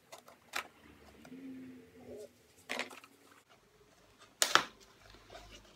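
A small cardboard box being opened by hand: a few sharp taps and clicks of cardboard and packaging, the loudest about four and a half seconds in, between quieter handling.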